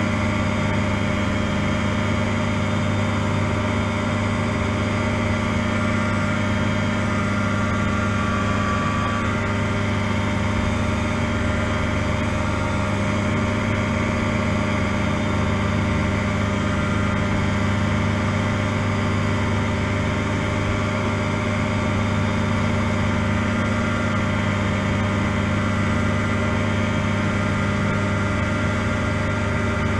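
Challenger ultralight's engine running at a steady, unchanging speed, heard from the open cockpit.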